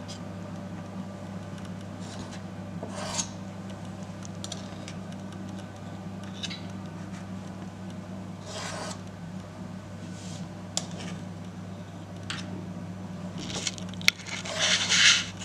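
Two spoons scraping against each other as thick banana muffin batter is pushed off into paper muffin cases. There are a few short scrapes several seconds apart, the strongest near the end, over a steady low hum.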